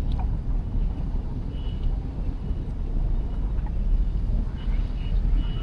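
Steady low rumble of city street traffic, with several short high-pitched beeps from about a second and a half in.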